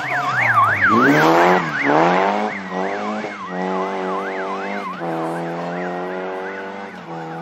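Vehicle siren sweeping rapidly up and down over a car engine. The engine revs up hard twice early on, then runs at a steady pitch with short breaks, and the siren fades near the end.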